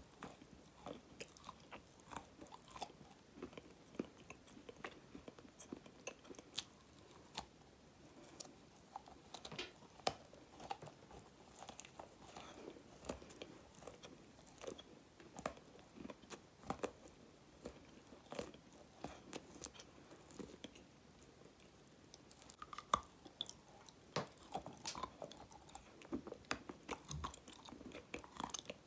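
Close-miked biting and chewing of a hard, dark grey stone-like chunk: many short, sharp crunches and clicks scattered throughout, with softer mouth sounds between them.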